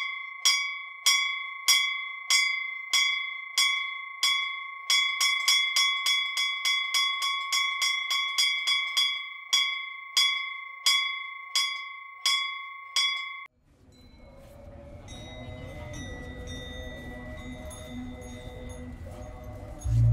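A bicycle bell rung over and over, each ding ringing out before the next, at first about one and a half a second, quickening to three or four a second midway, then stopping abruptly about two-thirds of the way in. Faint soft music follows.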